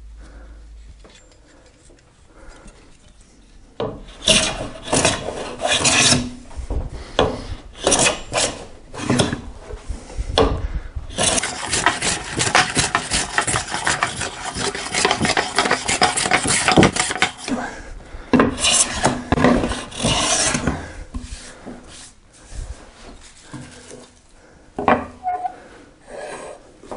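Bench plane (jack plane) shaving a wooden board by hand in long strokes along its length, flattening it. The strokes begin about four seconds in, come as separate passes, then as a quick unbroken run in the middle, and thin out after about twenty seconds, with a few light knocks near the end.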